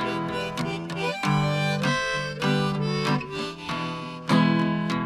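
Background music with strummed acoustic guitar carrying a sustained melody line.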